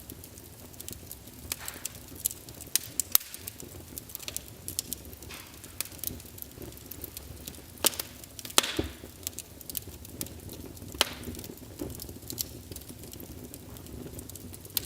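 Wood fire in a fireplace crackling, with irregular sharp pops and snaps over a low steady hiss; a few louder snaps stand out around the middle.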